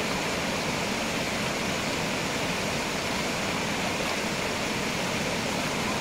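Fast rocky stream rushing over stones in whitewater rapids: a steady, even rush of water.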